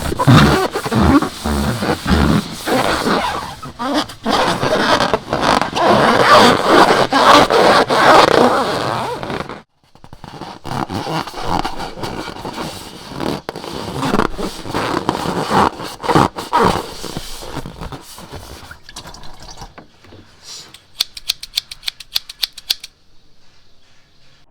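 Slime being squished and stirred by hand, a loud wet crackling. About ten seconds in it drops suddenly to quieter squishing, and near the end there is a quick run of sharp little clicks.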